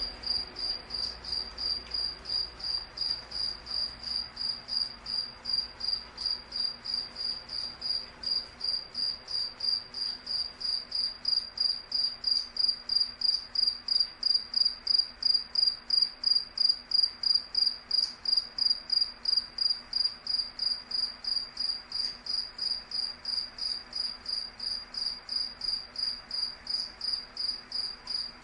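A cricket chirping steadily: a single high-pitched chirp repeated evenly, about three times a second, a little louder in the middle.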